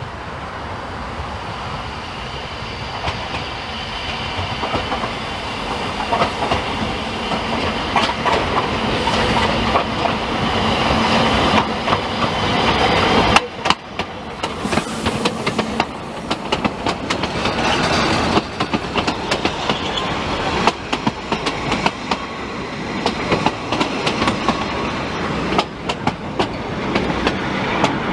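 Narrow-gauge Ffestiniog Railway train running, its wheels clicking rapidly over the rail joints. The sound grows louder over the first half, with a brief drop about halfway through.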